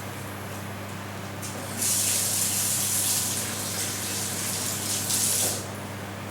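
A steady hiss of rushing noise, like water running from a tap, starting about two seconds in and stopping after about four seconds, over a constant low hum.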